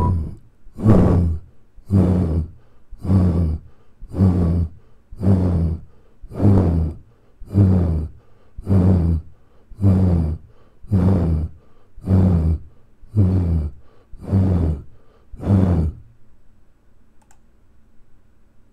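A deep, breath-like sound repeated about once a second, some fifteen times, each pulse starting loud and fading away. The pulses stop about sixteen seconds in.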